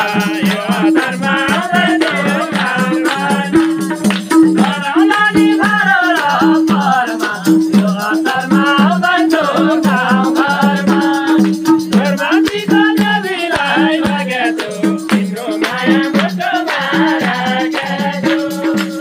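Live Nepali dohori folk singing: voices singing over a steady rhythm of madal drum strokes, with a brisk percussive jingle on the beat.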